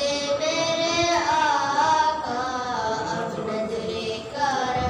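A young girl singing an Urdu naat into a microphone. She holds long notes that bend gently in pitch, and a new phrase begins near the end.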